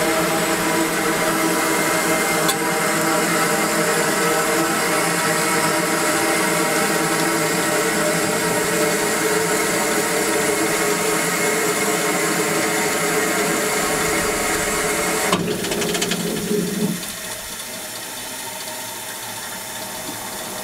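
Standing steam locomotive giving off a steady hiss of steam with a held whine. About three-quarters of the way through there is a click, and the sound drops to a quieter steady hiss.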